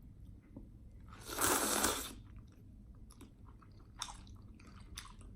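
Close-miked chewing of food, with soft wet mouth clicks scattered through, and one louder noisy sound lasting about a second, starting about a second in.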